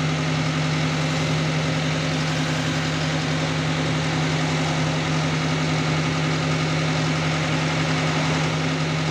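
Diesel engine of an Escorts HD85 double-drum tandem road roller idling, freshly started: a steady, unchanging low drone.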